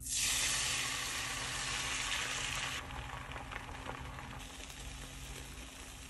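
Beaten eggs hitting a hot nonstick frying pan and sizzling: a hiss that starts suddenly as the egg is poured in and gradually dies down as it spreads and sets.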